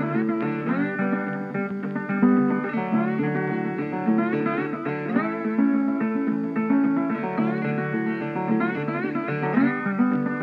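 Background music: acoustic guitar playing plucked notes, some of them sliding in pitch, over a steady low line.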